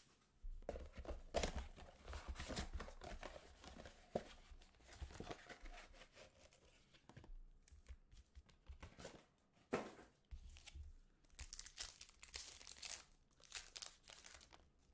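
Hands tearing open and crinkling the wrapping of a 2019 Topps Chrome Sapphire card box and its foil packs: irregular rustling with sharper rips, the loudest about two seconds in, about ten seconds in and a little before the end.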